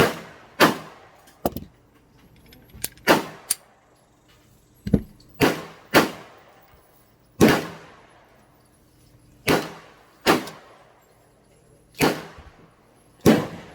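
.40 S&W pistol being fired shot after shot, roughly one shot a second at uneven spacing, each a sharp crack with a short echoing tail; a few fainter shots fall in between.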